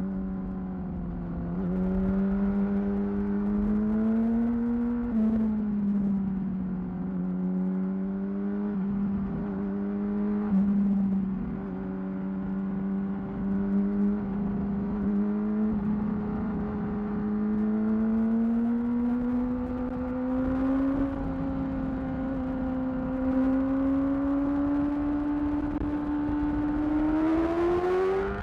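2008 Yamaha R6's inline-four engine through a Termignoni exhaust, running under way at a fairly steady engine speed with small dips. Its pitch drifts slowly upward, then it revs up sharply near the end.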